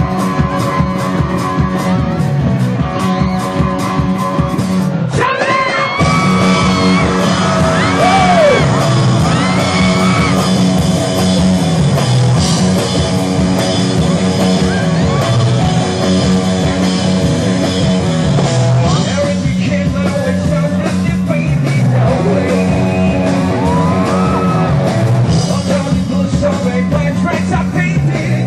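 Live rock band playing loud over stage speakers, with a walking bass line and a steady beat; a male singer's voice comes in about five seconds in and carries on over the band.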